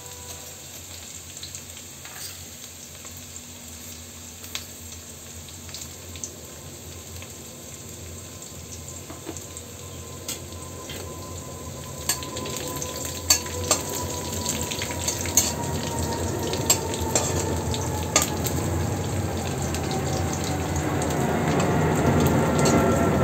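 Crushed garlic and nigella seeds frying in mustard oil in an iron wok, the sizzle growing steadily louder. From about halfway in, a spatula scrapes and taps against the pan as it stirs.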